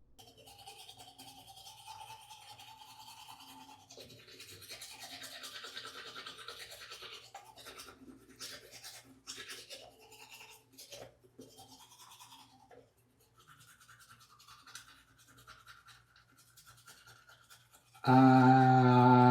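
Teeth being brushed with a toothbrush: irregular scrubbing strokes. Near the end, loud humming music with a sustained, chant-like tone starts suddenly and drowns it out.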